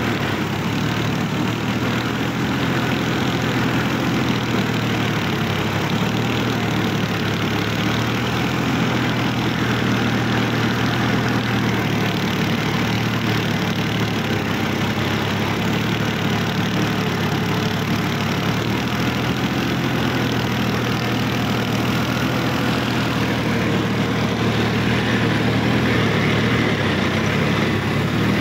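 Sonalika DI-50 RX tractor's diesel engine running steadily, with a strong low hum that holds level throughout.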